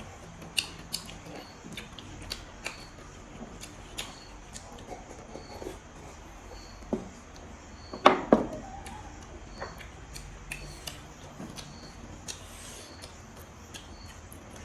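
Close-up eating sounds: chewing meat on the bone, with scattered sharp clicks and crunches and two louder crunches about eight seconds in.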